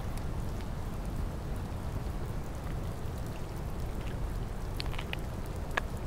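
Steady rain falling, an even rushing noise with a low rumble beneath and scattered individual drops ticking, a few sharper ones near the end.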